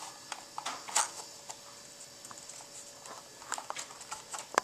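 Light plastic clicks and taps as foam darts are pushed into the six-dart clip of a Nerf Recon CS-6 to reload it, the sharpest click about a second in.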